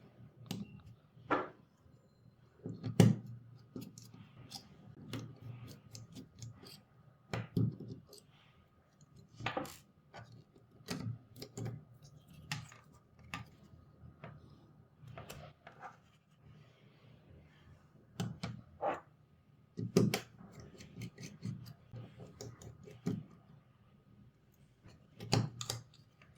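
Irregular clicks, taps and knocks of small tools and plastic and metal parts being handled on a work surface as a wireless gaming mouse is taken apart, with a few louder knocks among them.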